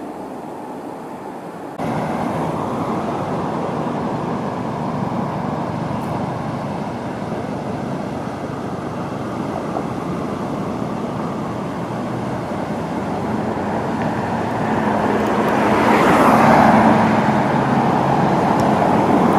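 Road traffic noise: a steady rush of passing cars that steps up suddenly about two seconds in, then swells as a vehicle passes close near the end.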